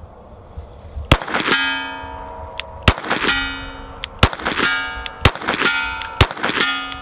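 Five shots from a Glock 44 .22 LR pistol, each answered a moment later by the ringing clang of a steel target plate being hit.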